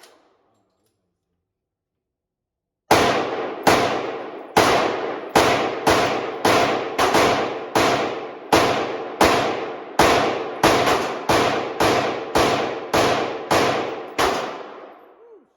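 Semi-automatic gunfire: a steady string of about twenty shots, one every half-second to a second, each with a ringing echo. It begins about three seconds in and ends shortly before the close.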